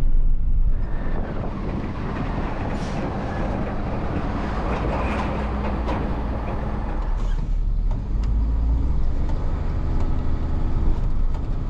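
Rollback tow truck driving: engine running with road and wind rush, which gives way to a steadier low engine hum in the second half.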